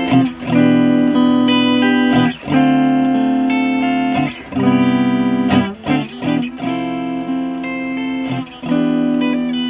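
Fender Japan ST54-95LS electric guitar on its rear pickup, with its Mid Booster turned up a little, playing chords that are strummed and left to ring, some struck in quick succession. The slight mid boost gives the thin rear pickup more body and makes it a more usable tone.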